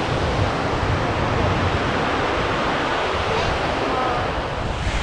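Steady rushing of water pouring down the walls of a 9/11 Memorial reflecting pool, a man-made waterfall, with wind buffeting the microphone underneath.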